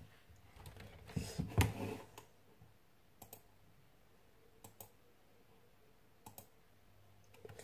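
Handling noise with a knock about a second and a half in, then sharp computer clicks, in pairs, every second and a half or so.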